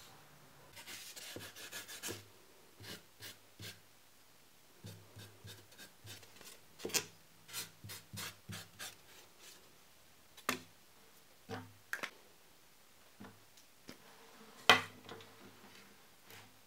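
Scratchy strokes of a pencil and a marker on foam core board, amid scattered clicks and taps of handling on a wooden workbench. The loudest is a sharp knock about 15 seconds in.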